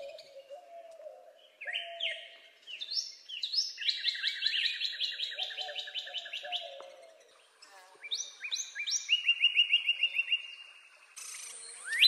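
Northern cardinal singing: loud down-slurred whistles, then a fast trill of short repeated notes lasting a couple of seconds, with a pause and another round of slurs and a trill later on.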